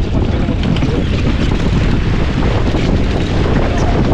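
Heavy wind buffeting the microphone over the rush and splash of water along the hull of a Farr 280 sportsboat under sail.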